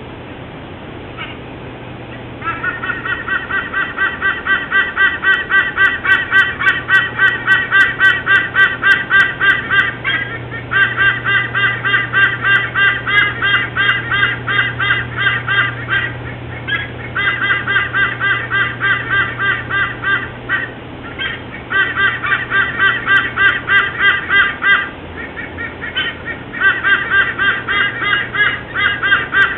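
White-bellied sea eagle calling: long runs of rapid, goose-like honking notes, about five a second, in bouts of several seconds with short breaks between. A low steady hum runs underneath.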